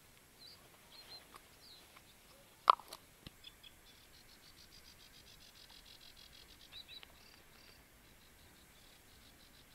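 Faint chirps and short calls of small birds, with a high, fast, even trill through the middle. A single sharp click about three seconds in.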